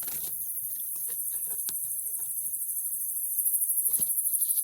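Night-time chorus of insects chirping in a fast, even, high-pitched pulse, which grows louder a little over three seconds in.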